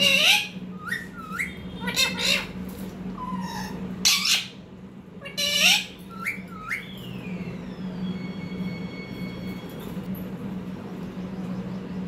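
Rose-ringed parakeet giving four loud, harsh squawks in the first six seconds, with short rising chirps in between. A steady low hum runs underneath.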